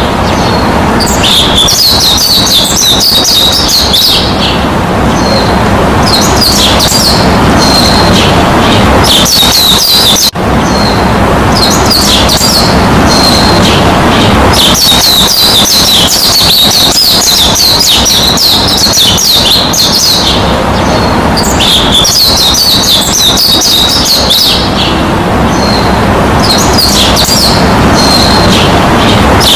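Many small birds chirping and twittering in quick clusters, over a steady rushing noise. The sound dips out briefly about ten seconds in.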